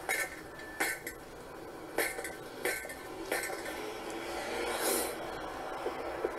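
Metal clinks from a bike chain and its parts being handled after the chain has jumped off its sprocket. There are about five sharp clinks in the first three and a half seconds and a softer rustle near the end. The chain keeps coming off because the rear wheel slips in its mount.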